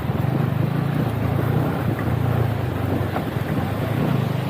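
Yamaha MT-15 motorcycle's single-cylinder engine running steadily while riding, with wind rushing over the microphone.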